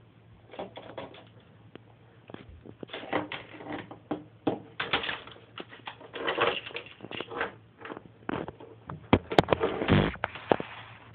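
A bathtub plug knocked and dragged about in a bathtub by a playing cat: irregular clattering knocks and short scraping rattles, with the sharpest, loudest knocks about nine to ten seconds in.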